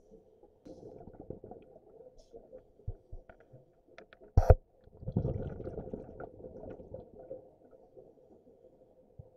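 Muffled underwater bubbling and rumbling heard through a waterproof camera housing. A sharp knock comes about four and a half seconds in, followed by about two seconds of heavier bubbling rumble.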